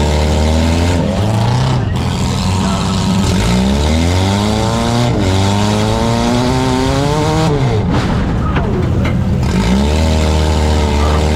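Four-cylinder demolition derby car engines revving hard again and again, each climb in pitch breaking off and dropping back as the throttle is lifted, over a steady lower engine drone.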